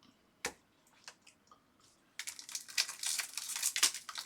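A single click, then from about halfway through a dense, rapid crinkling of a foil trading-card pack wrapper being torn open and handled.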